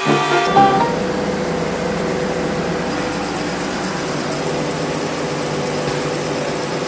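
Stone-cutting bridge saw with a diamond blade running and cutting stone under water spray: a steady mechanical noise with a steady hum, joined about three seconds in by a fast, even high ticking. Background music fades out in the first half second.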